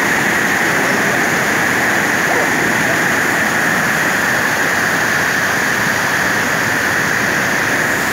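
Loud, steady rushing of a swollen, muddy river tumbling through rapids, with no breaks.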